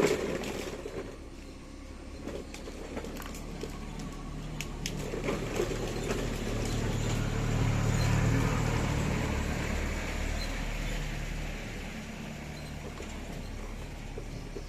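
Mini excavator's motor running steadily, a low hum that grows louder around the middle and then eases off.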